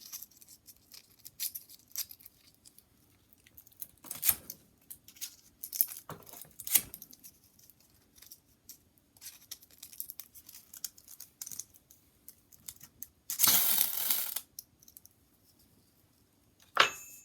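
Coarse 60-grit sandpaper and a ferro rod being handled, with scattered rustles, scratches and small clicks. About two-thirds through comes one long, harsh scrape of about a second, the rod drawn across the sandpaper, and near the end a sharp click with a short metallic ring.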